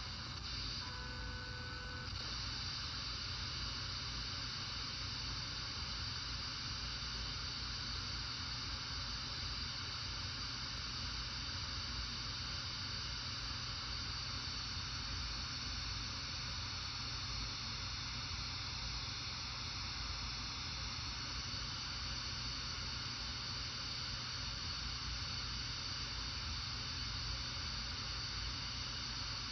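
Steady FM receiver hiss from a software-defined radio tuned to the empty 30.22 MHz paging channel, with no signal present. A brief faint tone sounds about a second in.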